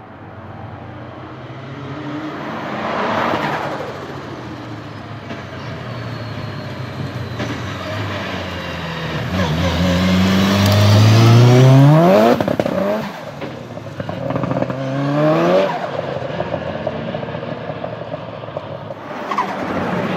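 Highly tuned turbocharged Nissan 200SX engine revving hard, its pitch climbing under load and then dropping off sharply when the throttle is lifted. The longest climb comes about halfway through, and a second comes a few seconds later.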